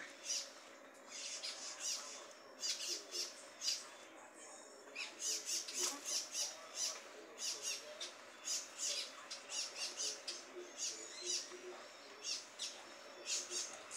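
Chickens feeding on the ground: an irregular run of short, high sounds, a few a second, with a brief pause about four seconds in, and a few soft, low clucks.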